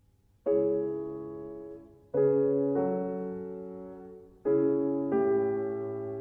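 Background piano music: slow chords, each struck and left to fade, about every second or two.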